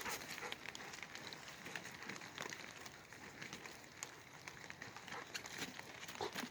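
Faint, scattered crackling and rustling from dogs moving about on a trampoline, with irregular small clicks.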